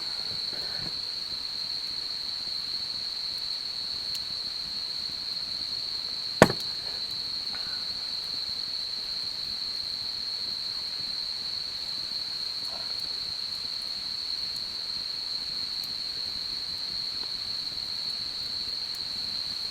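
Steady, unbroken high-pitched trilling of autumn insects such as crickets. One sharp crack, the loudest sound, comes about six seconds in.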